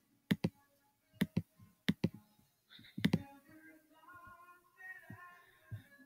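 Computer mouse clicks: four crisp double clicks, each a quick press and release, spaced about a second apart, with a few fainter clicks near the end.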